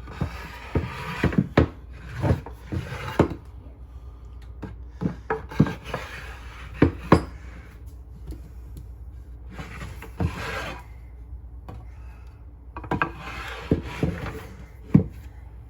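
Knife chopping and scraping on a wooden cutting board: groups of sharp, irregular knocks, with rasping strokes of the blade across the wood between them.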